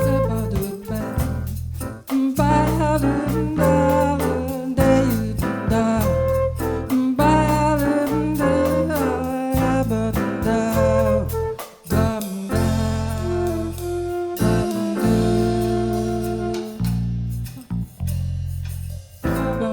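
Live jazz band playing a slow ballad: a melody line with vibrato over long, sustained bass notes.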